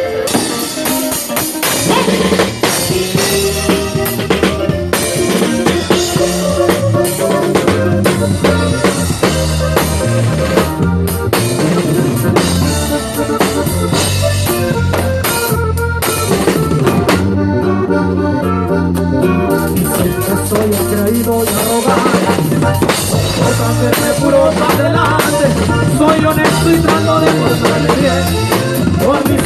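Live band music led by a drum kit keeping a steady beat with cymbals, over bass and melody instruments. About seventeen seconds in, the high cymbal sound drops out for about three seconds before the full kit comes back in.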